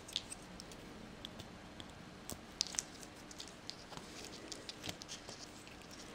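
Faint, scattered small clicks and ticks of fingers handling a small plastic connector plug and its wires, over a faint low hum.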